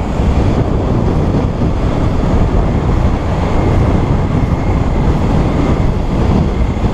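Steady wind rush and rumble on the microphone, mixed with the running engine of a Suzuki SV650 V-twin motorcycle cruising at a constant pace.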